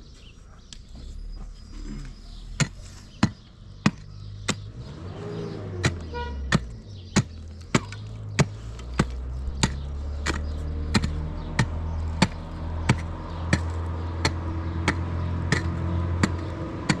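Repeated sharp blows of a tool striking, evenly spaced at about one every 0.6 s after a short pause, over a low steady drone like a running engine that slowly grows louder.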